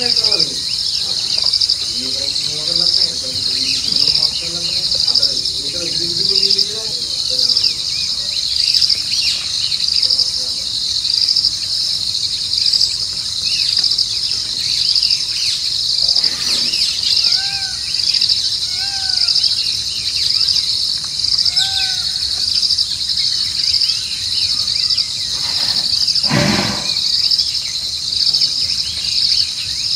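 Night insect chorus: crickets chirping in a steady, evenly pulsing trill, the loudest sound throughout. Low voices can be heard in the first several seconds, three short chirping calls come around the middle, and a single thud comes near the end.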